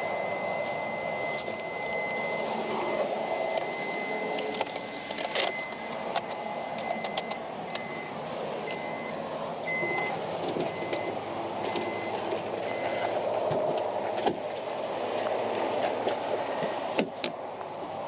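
Tow truck engine running steadily. A high electronic beep sounds continuously at first, then breaks into short repeated beeps partway through. Scattered clicks and rattles from handling sit on top.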